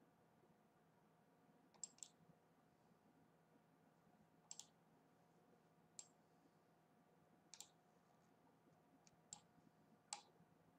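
Computer mouse clicks, single and double, spaced a second or two apart, over a faint steady hum.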